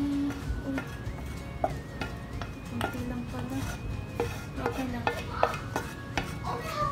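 Wooden spoon scraping and knocking against the inside of a saucepan, pushing thick cooked peach filling out, with many short scrapes and taps.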